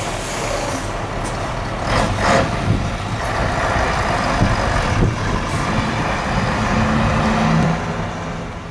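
Heavy truck diesel engine running close by, with short bursts of air hiss about two seconds in, typical of truck air brakes.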